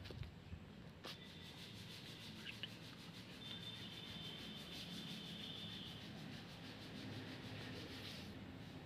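Faint rhythmic rubbing, a few strokes a second, that stops near the end, with a faint high-pitched whine in the middle.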